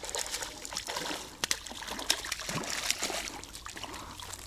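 Water splashing and trickling in small, irregular splashes.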